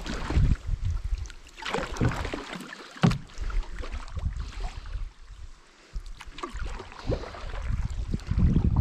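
Canoe paddling: paddle strokes dipping and splashing in the river water, with gusty wind rumbling on the microphone. A sharp knock comes about three seconds in.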